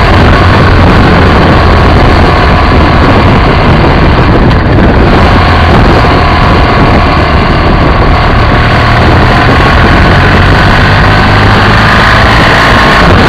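BMW F800ST motorcycle riding at road speed, picked up by a camera mounted low on the bike: a loud, steady mix of wind and road noise over the running parallel-twin engine.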